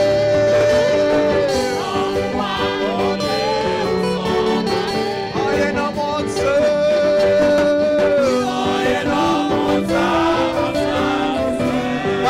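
A man sings a gospel hymn into a handheld microphone over instrumental accompaniment, holding long notes twice.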